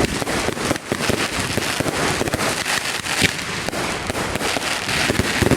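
Fireworks going off in rapid succession: a dense, continuous crackling of many bangs and pops, with one louder bang about three seconds in.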